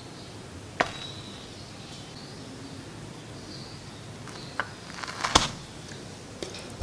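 A small aluminium lid set onto a miniature metal pot, a single light clink with a brief ring about a second in. A few soft taps and knocks follow near the end as the tiny stove is handled.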